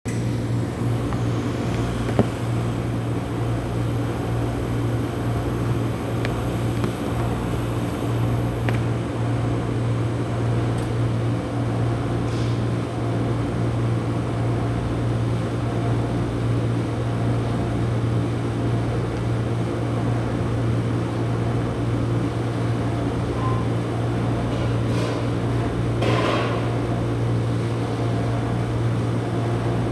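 Steady mechanical hum of a rolled ice cream cold plate's refrigeration compressor and fan running, with a few faint knocks of kitchen work, one about two seconds in and two near the end.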